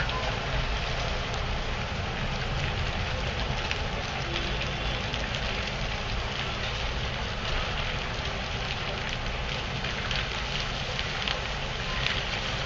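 A burning external thermal insulation facade on a high-rise, giving a steady rushing crackle with scattered small pops.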